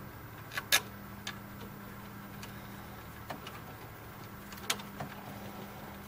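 A small screwdriver drives the mounting screws of a CD laser unit back in, giving scattered sharp clicks of the bit and screws against the metal mechanism. The loudest click comes under a second in and another strong one just before five seconds. A faint steady hum runs underneath.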